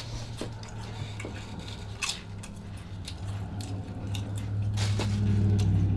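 Potato chip crunching as a person bites and chews it, with sharp crisp crackles scattered throughout. A low steady hum underneath grows louder near the end.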